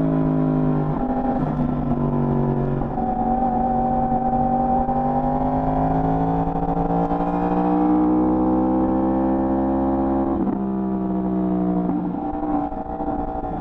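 Stock Yamaha R1 inline-four running under load on its standard exhaust. The note climbs slowly through the middle and changes pitch abruptly about a second in and again near the end as the rider changes gear.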